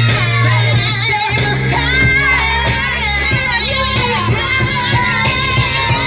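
A recorded song with a sung lead vocal over a steady bass and drum beat, played back over a loudspeaker for the performers to lip-sync to.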